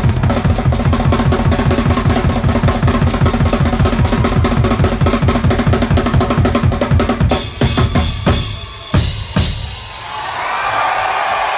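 A rock drum kit played hard and fast, with bass drum and snare in an even run of strokes about six a second. The run stops about seven seconds in, followed by a few last separate hits.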